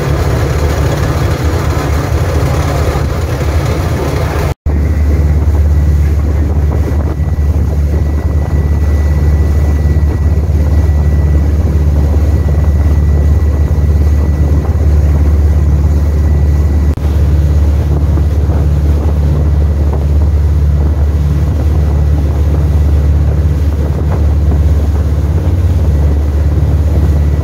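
Fishing boat's engine running steadily at cruising speed, a loud low drone, with wind buffeting the microphone and the rush of the boat's wake.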